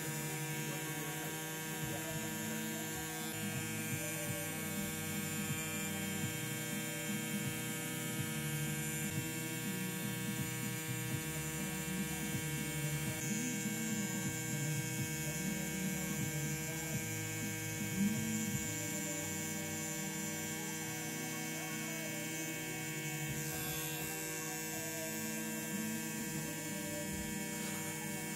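Xion Pen rotary tattoo machine running with a steady electric hum while its needle lines a tattoo into skin.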